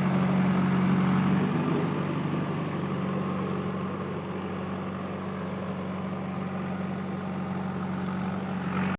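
Diesel engine of a JCB 3DX backhoe loader running steadily at low revs, easing slightly about two seconds in.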